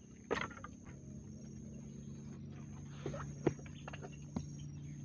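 Scattered faint knocks and clicks as a mesh fish trap holding a caught fish is handled, over a steady high whine and a low hum.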